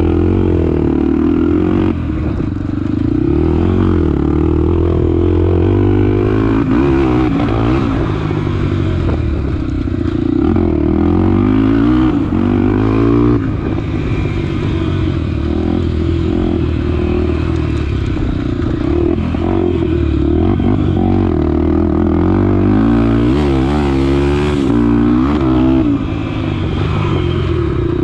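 Honda XR250 Tornado's single-cylinder four-stroke engine under riding load, its pitch rising and falling over and over as the throttle is opened and closed through the gears.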